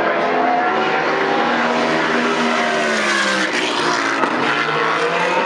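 Several GT3 race car engines running hard on track at once, their overlapping notes rising and falling in pitch as the cars accelerate, shift and pass.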